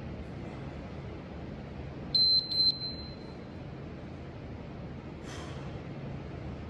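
Two quick, high-pitched electronic beeps from an interval timer about two seconds in, the second ringing on briefly, marking a change of interval in a timed workout.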